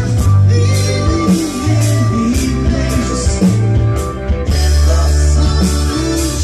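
Live rock band playing: a drum kit with cymbal hits over long held bass notes, with keyboards and electric guitar.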